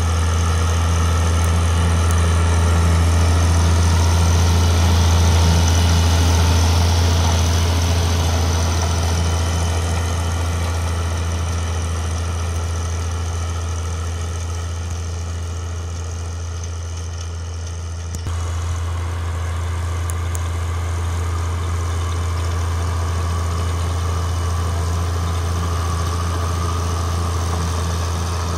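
IHC 956 tractor's six-cylinder diesel engine working steadily under load as it pulls a rotary power harrow and seed drill, with the harrow's running gear and rattle mixed in. It swells to its loudest about five seconds in and then eases off, with an abrupt change in the sound about two-thirds of the way through.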